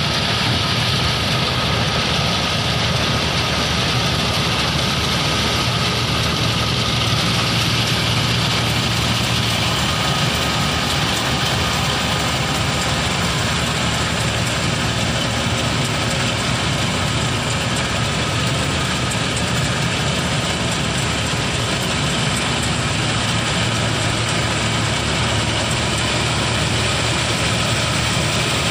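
An 8070 combine harvester working a rice paddy: its diesel engine and threshing machinery run steadily and loudly without change.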